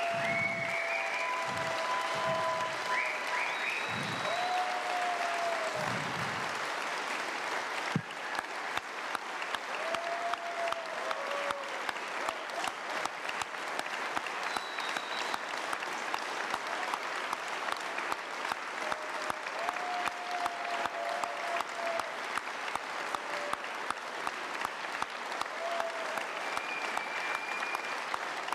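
Large audience giving a standing ovation: dense applause with a few shouts and cheers at first. About eight seconds in it turns into steady rhythmic clapping in unison that keeps going.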